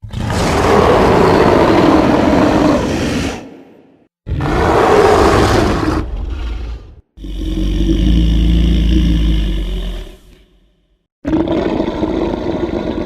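Suchomimus dinosaur roar sound effects: four separate roars of a few seconds each, split by short silences. The third has a deep rumble beneath it.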